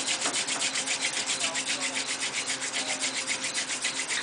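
Hand drill fire-making: a dried swamp rose mallow spindle spun between the palms, grinding into the notch of a pine hearth board. It makes a fast, even, rhythmic rasping with a faint steady squeak underneath, the friction working up hot dust toward a coal.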